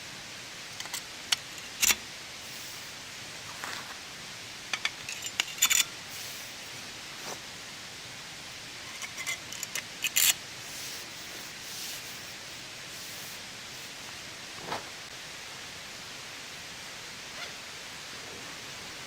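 Steady hiss of rain in the forest, with scattered short clicks and rustles, a cluster of them about five to six seconds in and again around ten seconds in.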